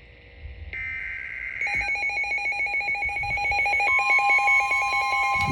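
Emergency Alert System activation: a one-second burst of SAME digital header data, then alert tones start about a second and a half in. The tones are a warbling high tone over a rapidly pulsing lower tone, and a second steady tone joins about four seconds in.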